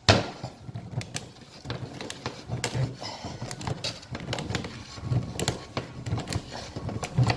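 Oil filter cutting tool's wheel cutting around the steel can of a spin-on oil filter as the filter is turned by hand against the blade: an irregular run of metallic clicks and scrapes, with a sharp click right at the start.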